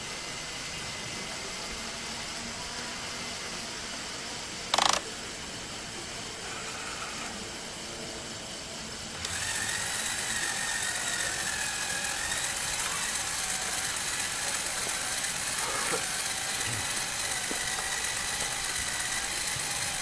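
The small electric motors and plastic gears of a LEGO machine running with a steady whine. There is a short, loud burst about five seconds in, and from about nine seconds in the running gets louder and its pitch wavers, as under changing load.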